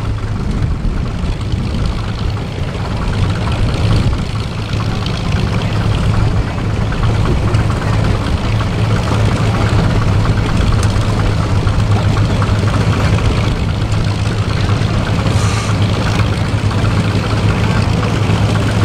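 Antique farm tractor engines running slowly at low throttle, a steady low drone with no revving.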